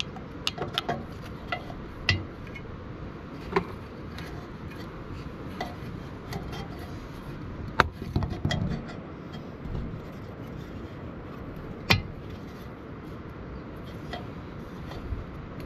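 Light clicks and knocks of parts and tools being handled while servicing a tiller engine, scattered through, with two sharper knocks about eight and twelve seconds in, over a steady low background noise.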